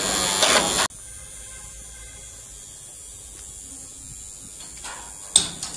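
A loud, steady machine buzz with a high whine that cuts off suddenly about a second in. Then a quiet background with a faint high whine, and a sharp knock near the end.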